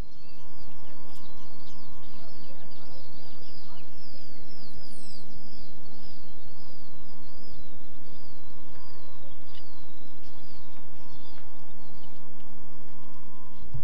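A bird chirps in a long, quick series of repeated down-slurred notes over a steady low rumble and hum.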